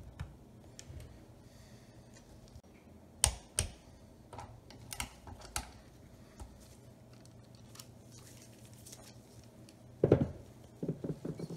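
Scattered light metallic clicks and taps of a socket tool and small parts as a carburetor is fastened onto a small dirt bike engine. A short burst of clattering knocks comes near the end.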